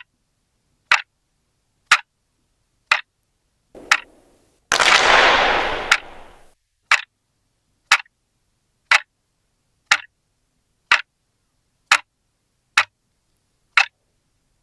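Clock ticking steadily, about one tick a second. About five seconds in, a louder rushing noise rises and fades away over a second and a half.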